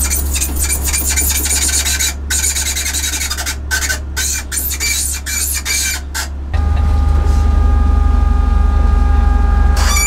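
WD-40 aerosol hissing in short bursts onto a squeaking steering column as the wheel is worked back and forth. About six and a half seconds in it gives way to a steady hum with a few held tones.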